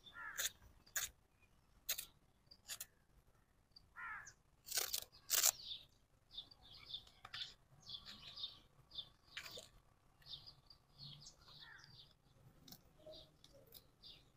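Faint bird chirps, short and scattered, with a few brief gliding calls and occasional sharp taps.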